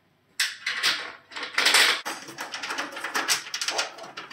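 Galvanized steel raised-bed panels and their small bolts and nuts being handled: a couple of longer scraping noises in the first two seconds, then a quick run of small metallic clicks as the bolts and nuts are fitted by hand.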